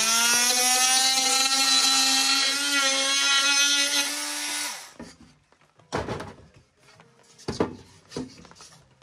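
Cordless oscillating multi-tool running up to speed and holding a steady buzzing whine as it cuts the tongue off a pine tongue-and-groove board, stopping about four and a half seconds in. Then a few wooden knocks as the board is handled.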